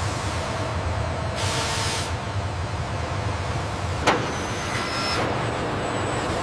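Car assembly line machinery running steadily, with a short hiss about one and a half seconds in and a single sharp knock about four seconds in.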